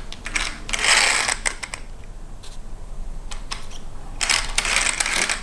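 Small plastic and metal parts of a 1/10 RC car chassis clicking and rattling as it is handled and worked by hand. There are two longer scraping bursts, about a second in and again near the end.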